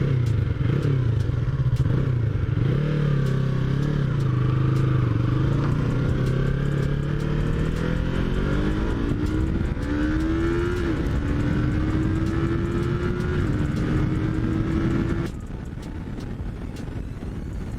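Yamaha MT-03's parallel-twin engine pulling under acceleration, its pitch climbing steadily, with two short dips about eleven and thirteen seconds in as it shifts up a gear. About fifteen seconds in the engine sound drops off suddenly to a quieter level as the rider comes off the throttle.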